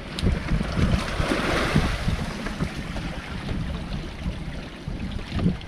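Wind buffeting the microphone with a low rumble, over sea water washing and splashing around a bamboo fishing platform's posts; the splashing swells a second or two in.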